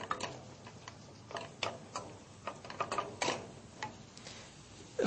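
Scattered light clicks and taps at a stovetop while cooking, coming irregularly about two or three a second.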